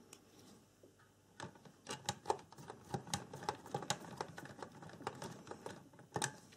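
Small hand screwdriver and the plastic housing of a light alarm clock clicking and tapping: irregular light clicks, several a second, starting about a second and a half in, as small screws are turned by hand into the plastic cover and the unit is handled.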